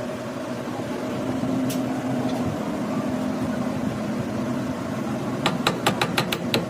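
A machine running with a steady hum, joined about five and a half seconds in by a quick series of sharp taps, roughly five a second.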